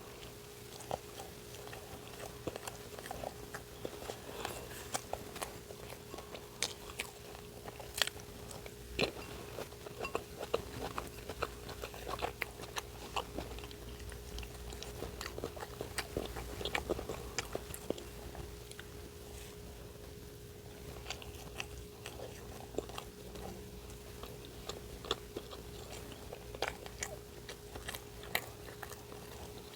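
A person biting and chewing an English muffin sandwich filled with deviled eggs, with many irregular soft crunches and mouth clicks, over a steady low hum.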